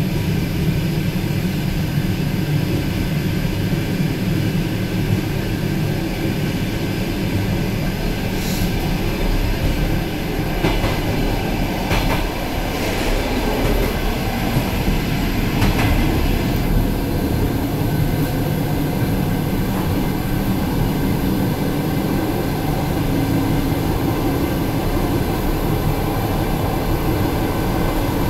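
ET2M electric multiple unit running on the line, heard from inside the car: a steady rumble of wheels on rails, with a few sharp clicks and knocks between about 8 and 17 seconds in.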